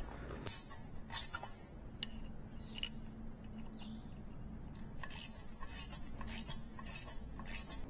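Ratchet wrench clicking on a fitting of a pressure washer's pressure regulator: two sharp metal clicks in the first second or so, then five evenly spaced clicks about half a second apart in the second half.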